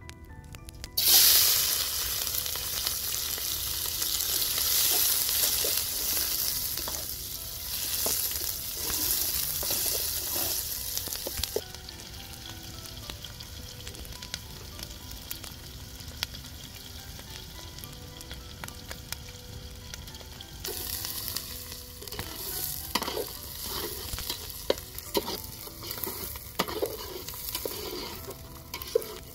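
Food hitting hot oil in a metal pot over a wood fire and sizzling: it starts suddenly about a second in and fries loudly at first. Partway through it settles to a quieter sizzle, then swells again near the end, with scattered clicks of a spoon stirring against the pot.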